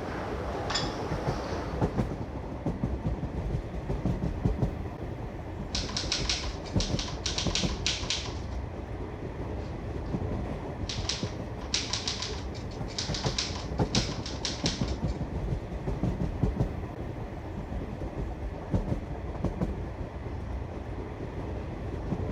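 Passenger train running steadily, a continuous low rumble of the railway carriage. Over it, two runs of typing on a Corona model 3 portable typewriter, quick crisp keystrokes at about 6 to 8 seconds in and again from about 11 to 15 seconds in. A short high-pitched sound comes about a second in.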